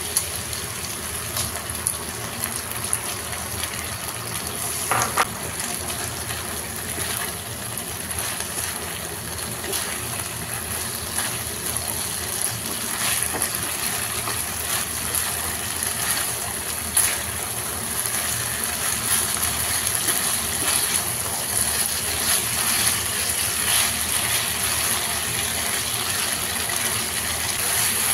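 Pork belly and onions sizzling steadily in a hot frying pan after a dark soy sauce mixture is poured in, tossed with a spatula that scrapes and knocks against the pan now and then.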